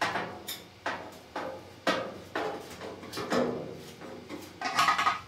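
Knocks and clanks of metal parts as the sheet-metal cabinet of a vintage Maytag dryer is worked loose, roughly two a second, then a longer, louder grating rattle near the end.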